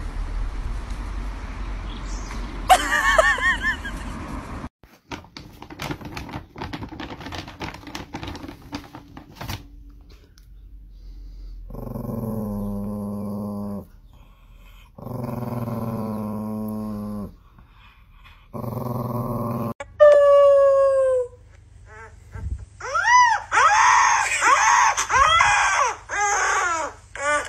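Dogs vocalizing: a small dog makes three drawn-out growling noises of about two seconds each, then, near the end, a puppy gives a string of short rising-and-falling howls.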